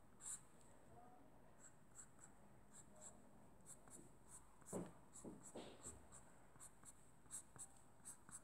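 Faint short strokes of a black marker pen scratching on paper while drawing lines, quick and irregular. A few louder, duller rubs come about five seconds in.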